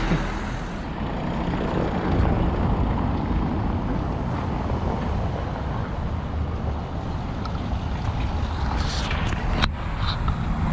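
Wind buffeting the microphone outdoors: a steady rumbling noise, with one sharp click near the end.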